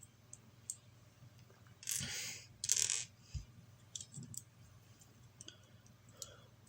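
Small plastic LEGO pieces being handled and pressed together: scattered faint clicks, with two short rattling bursts about two and three seconds in.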